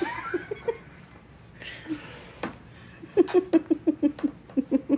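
A woman laughing: a brief giggle at the start, then a run of quick, short laughs, about five a second, from about three seconds in.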